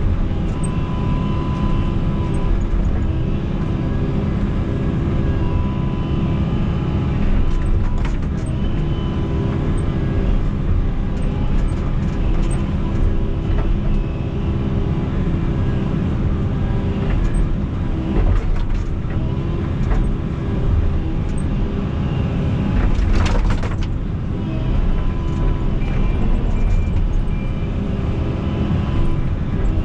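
Excavator's diesel engine running steadily under working load, with a few sharp knocks and cracks scattered through as it works.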